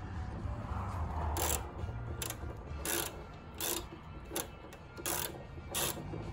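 Hand ratchet with a 10 mm socket and extension clicking in short back-strokes while bolts are tightened, a burst of clicks about every three-quarters of a second from about a second in.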